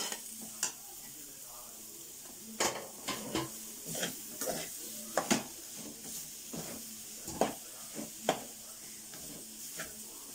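Metal spatula scraping and clacking irregularly against a metal kadai as a dry stir-fry of pounded tender jackfruit, grated coconut and onion is tossed and stirred, over a faint steady sizzle from the pan.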